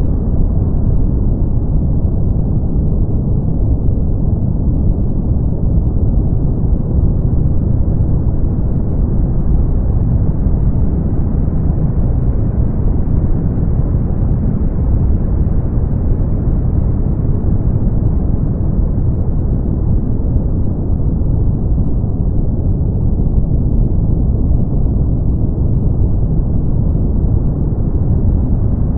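Steady brown noise: a deep, even rumbling hiss weighted to the low end, with no high frequencies. Its brightness drifts slowly up and down.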